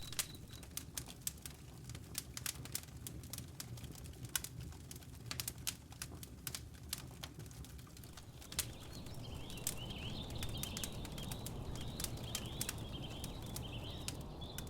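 Wood campfire crackling: irregular sharp pops and snaps of burning wood over a low steady flame noise. From about nine seconds in a thin, wavering high whistle joins in.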